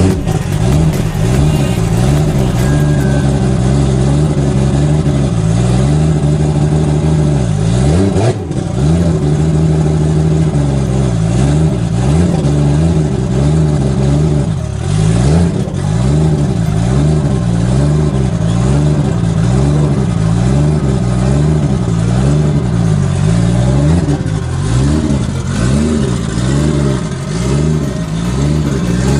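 Built, turbocharged 2JZ inline-six in a Lexus SC400 running at idle. Its speed keeps rising and falling unevenly, with a brief dip about eight seconds in. The lumpy idle is typical of a cammed engine.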